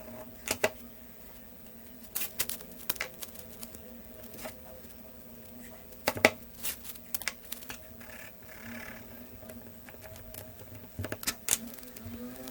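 Irregular clicks and light scratches from hands working over a masking-tape-wrapped phone, such as a pencil rubbed and tapped across the tape, over a steady low hum.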